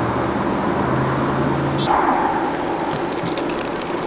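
Small plastic wire nuts being twisted onto thin camera wires: a run of short, sharp clicks and crackles from about three seconds in. Under it runs a steady low hum.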